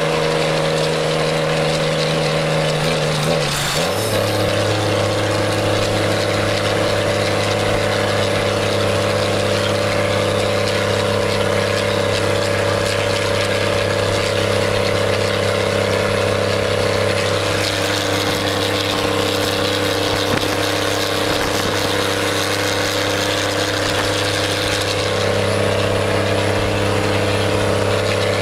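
Diesel truck engine heard from inside the cab, running at steady revs under way. Its note drops about four seconds in, then holds steady.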